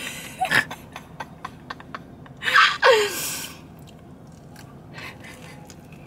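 A person biting into and chewing a large burger, with soft wet mouth clicks, and a short breathy voice sound with a falling pitch about two and a half seconds in.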